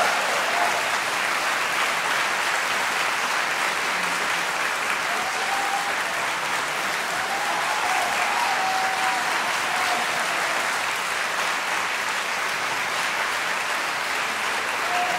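Concert-hall audience applauding, steady even clapping that neither builds nor fades.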